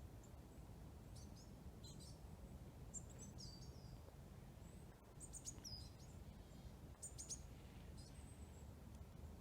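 Faint, short, high chirps and calls of small forest birds, coming in scattered groups of a few notes, some sweeping downward, over a steady low background rumble.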